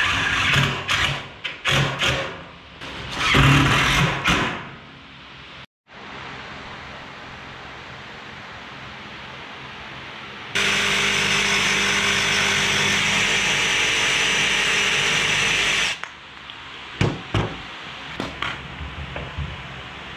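Power tools at work on a build: short, loud bursts of tool noise in the first few seconds, then a steady powered machine running for about five seconds in the middle, and a few sharp pops near the end.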